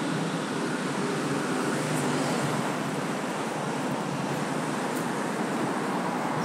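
Steady city street traffic noise: an even rushing hiss with a low hum.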